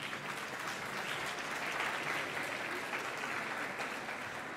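A large audience applauding steadily: many hands clapping together in a dense patter.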